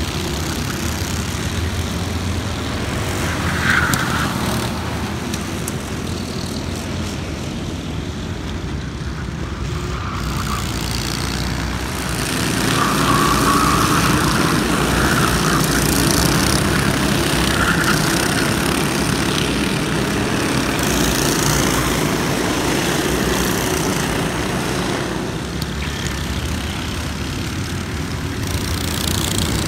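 Racing kart engines on a circuit: several karts running at high revs, the engine note rising and falling as they accelerate through corners and pass by, louder from about halfway.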